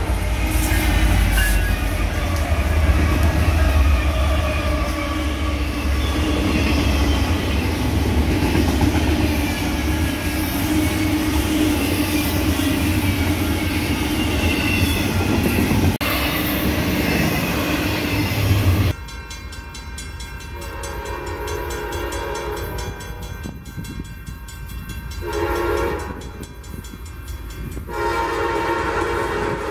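Diesel locomotives of a freight train passing close with a heavy engine rumble and the horn sounding, then double-stack container cars rolling by. About two-thirds of the way through the sound changes abruptly: a train horn sounding farther off in a series of long and short blasts.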